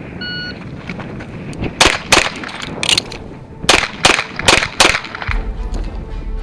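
A shot-timer beep, then seven pistol shots from a CZ Shadow 2 fired in quick succession, three and then four, about a second and a half after the beep. Background music comes in about five seconds in.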